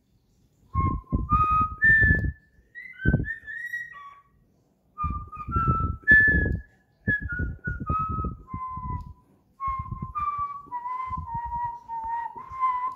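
Cockatiel whistling a tune: a run of clear whistled notes in phrases with short gaps, climbing at first and then stepping down to a string of lower held notes near the end. A low rumble sounds under each phrase.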